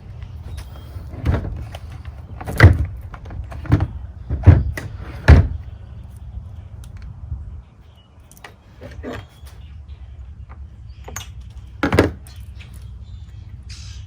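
Knocks and clinks of a chainsaw's bar and chain being handled during a chain change, with about five sharp knocks in the first half and one more near the end. A steady low hum runs underneath.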